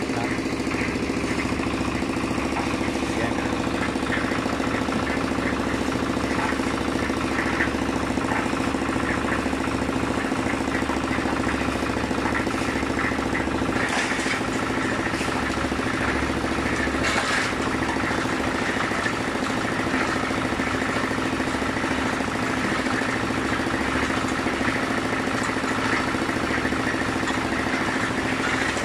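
Small engine of a portable drum concrete mixer running steadily at a constant speed, with a few brief knocks about halfway through.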